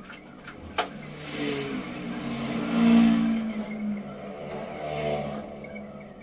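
A motor vehicle's engine rising and falling in pitch and loudness, loudest about three seconds in and swelling again near five seconds before fading. A sharp click comes just under a second in.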